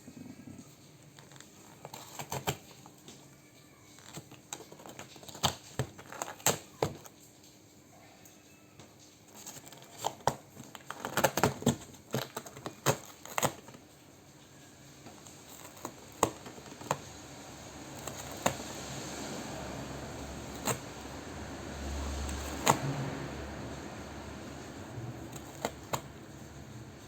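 Scattered sharp clicks and taps mixed with crinkly rustling, building to a longer stretch of rustling noise a little past the middle.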